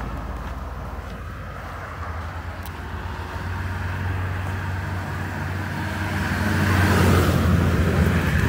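Road traffic: a motor vehicle passes close with a low engine hum and tyre noise, loudest about seven seconds in.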